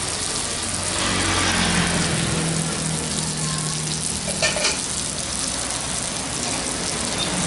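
Whole climbing perch (betok) frying in oil on a non-stick pan, sizzling steadily, with a couple of light clicks about four and a half seconds in.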